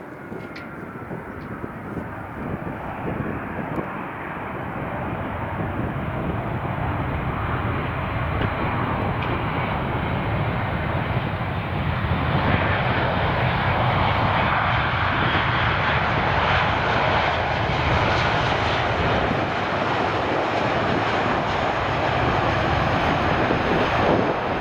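Jet airliner engines running, a dense roar that grows steadily louder over about twelve seconds and then holds at full strength.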